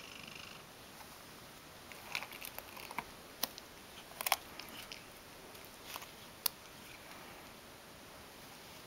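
Ragdoll cat biting and gnawing at a pin brush, its teeth clicking and scraping on the metal pins. A cluster of small clicks and scratches comes in the middle, with a few sharp clicks among them.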